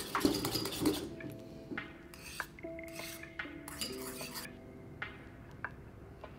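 Small metal whisk clattering and scraping against a ceramic bowl while oil and vinegar are whisked into an emulsified dressing. The clatter is loudest in the first second, then thins to scattered light taps over soft background music.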